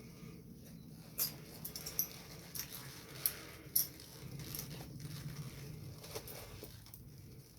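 Fabric rustling with scattered light clicks of fastenings while an elastic-backed waist cincher is being put on and done up.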